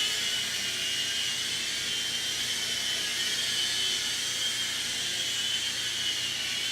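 Small indoor toy RC helicopter with two sets of rotors (Propel Stealth Flyer 2), its tiny electric motors and rotors whirring with a steady high-pitched whine.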